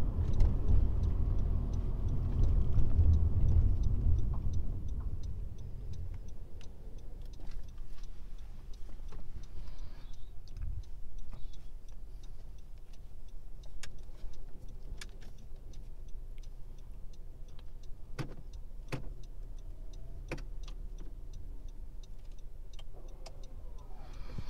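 Inside a Honda Civic's cabin: low road and engine rumble as the car pulls over and slows to a stop in the first five seconds, then the engine idling quietly. A steady ticking of the turn-signal indicator runs under it, with three sharper clicks about two thirds of the way through.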